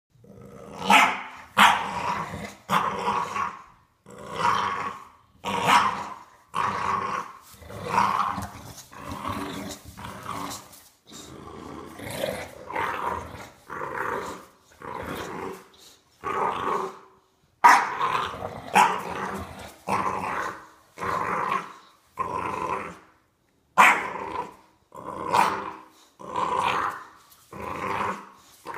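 Bulldog puppy growling in play while tugging on a toy: a string of short growls about one a second, a few starting more sharply like barks.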